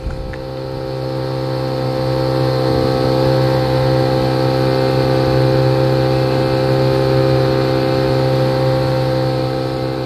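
Boat's outboard motor running at a steady speed under way, a steady drone at one pitch that grows louder over the first few seconds and eases off near the end.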